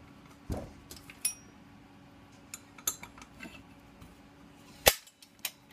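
Scattered metallic clinks and knocks from a Makita circular saw and an Allen key being handled while the blade bolt is loosened, with the loudest knock about five seconds in.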